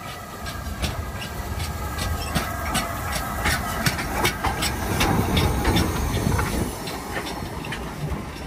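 LMS Black Five steam locomotive No. 5428, a two-cylinder 4-6-0, moving slowly alongside the platform. Its wheels and motion make irregular clicks and knocks over a low rumble and a hiss of steam, and the knocks are busiest in the middle.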